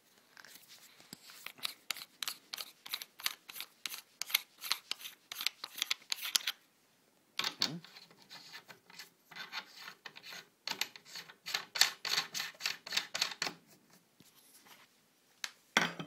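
Paintball barrel being screwed by hand into a BT TM-15 marker: quick rasping clicks of the threads, several a second, in two long runs with a short pause between.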